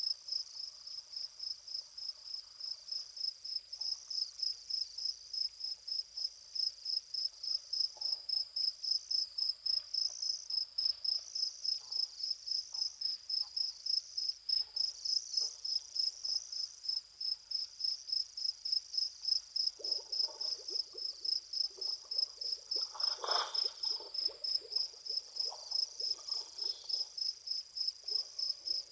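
Cricket chirping steadily, a rapid even series of high pulses. Fainter, lower scraping or rumbling sounds come in during the last third, with a brief stronger one about 23 seconds in.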